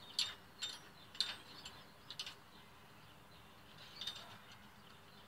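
Homemade vibration-proof metal gate latch on a steel-conduit chicken-coop gate being worked by hand: a few light metallic clicks and clacks in the first two seconds or so, and one more about four seconds in.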